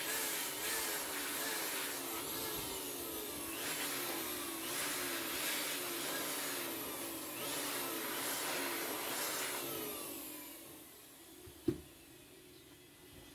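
A small electric motor runs with a hiss and a rapidly wavering pitch, then winds down about ten seconds in. A single sharp click comes near the end.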